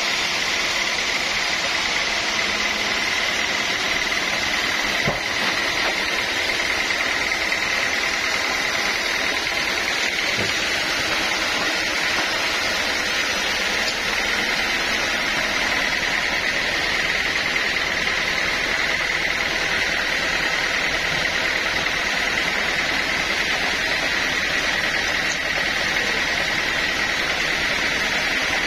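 Sawmill saw running steadily: a constant loud machine noise with a steady high whine held throughout.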